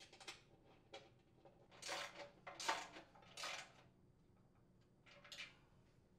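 A handful of faint metallic clinks and scrapes from nuts, bolts and hand tools being handled against the sheet-steel housing of a chipper shredder as it is fastened back together.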